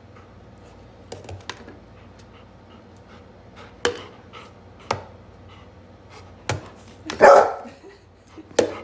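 Plastic cups clicking and tapping on a tabletop as they are lifted and set down, and a golden retriever giving a single bark about seven seconds in, the loudest sound.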